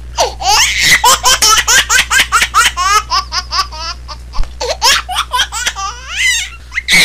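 A baby laughing in a long run of quick, high-pitched bursts, several a second, thinning out about halfway through.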